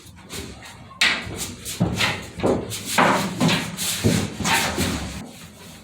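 Rough rubbing strokes, about two a second, of bed liner coating being spread over the truck bed's steel floor.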